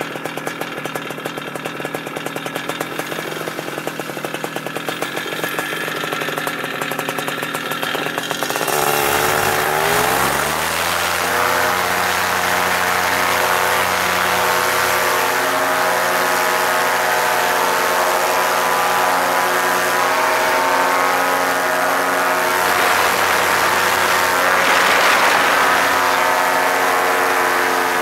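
Paramotor engine and propeller running at low throttle with a fast pulse. About nine seconds in it is throttled up, the pitch rising over a couple of seconds. It then holds steady at full power for the takeoff run and climb.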